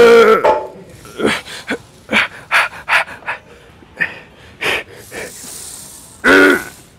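A man grunting and breathing hard through a set of incline presses on a Smith machine: a loud groan at the start as he drives the bar up, quick sharp exhales between reps, and another loud groan near the end.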